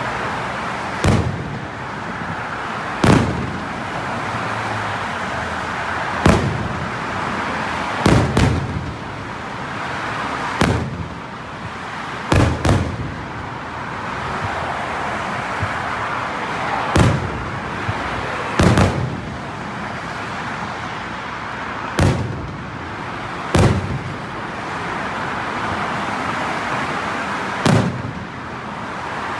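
Aerial firework shells bursting overhead: about a dozen sharp booms at uneven intervals, some in quick pairs, with a steady background noise between them.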